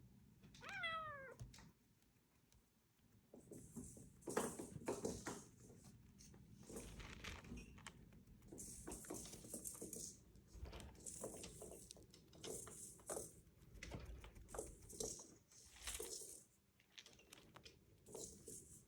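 A cat gives one high meow that falls in pitch, about a second in, followed by a string of short, soft noises.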